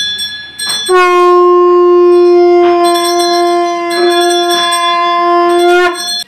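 Conch shell (shankha) blown in one long, steady note that starts about a second in and cuts off just before the end. A hand bell rings throughout, struck again and again; this is the ritual sounding of conch and bell during a Hindu puja.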